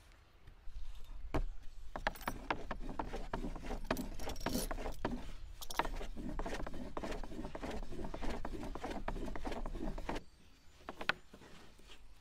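Fluted pastry wheel rolling through thin dough on a wooden cutting board, making a fast ratchet-like clicking and scraping. It starts about a second in and stops suddenly near the end.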